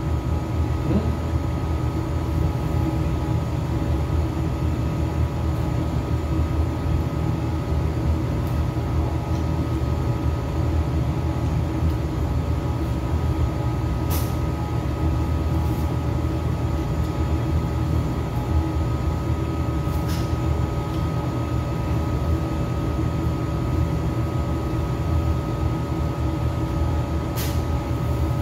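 Floor-standing air conditioner running: a steady low hum with a few constant tones over it. Three faint clicks, about halfway through and near the end.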